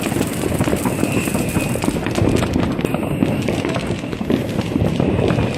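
New Year's Eve fireworks and firecrackers going off in a dense, rapid rattle of small pops and cracks with no break.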